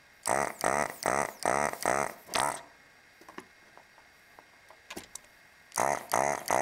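Hakko FR-300 desoldering gun's built-in vacuum pump running in short pulses as it sucks molten solder off a capacitor lead. There are five quick pulses, about two a second, then a pause of about three seconds, and the pulsing starts again near the end.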